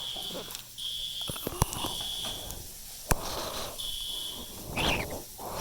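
Fire alarm sounding a steady high-pitched tone in uneven pulses of under a second, with a few sharp clicks along the way; the tone stops a little over four seconds in as the alarm is silenced at the panel.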